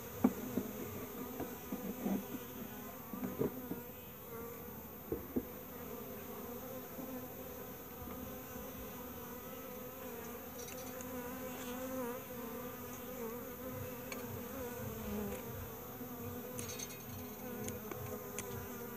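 Honeybees buzzing around an opened nucleus hive, a steady hum that wavers in pitch. A few sharp knocks come in the first five seconds.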